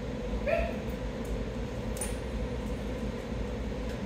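Steady room hum, like a ventilation or air-conditioning unit running, with a brief voiced call about half a second in and a light click about two seconds in.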